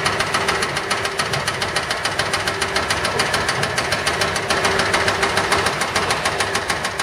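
Diesel engine of a concrete mixer truck running steadily during a pour, with a fast, even knocking clatter of about seven beats a second.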